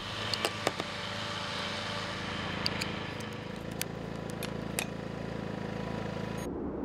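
Light clicks and taps of hands handling a portable solar panel and its cable, over a steady low hum. About six and a half seconds in, this cuts off suddenly and wind noise takes over.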